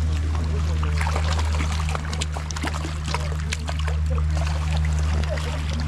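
Hooked fish splashing and thrashing in the water as it is drawn into a landing net, with water sloshing and dripping in many short irregular splashes. A steady low hum runs underneath.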